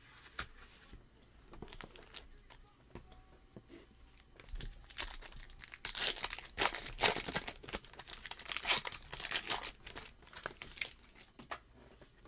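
A trading-card pack wrapper being torn open and crinkled by hand: a dense crackling that starts about four seconds in, is loudest in the middle, and thins out near the end.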